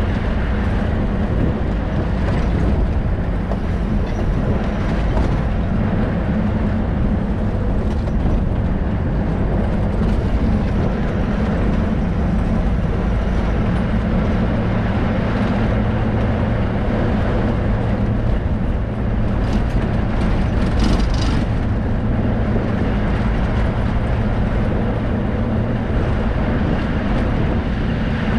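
Safari vehicle driving, with a steady engine hum under road and wind noise and a few brief rattles about twenty seconds in.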